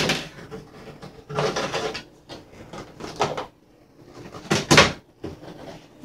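Plastic knocks and rattles as a portable washing machine's flexible inlet hose is taken out and handled against the machine's plastic body, in three short bursts.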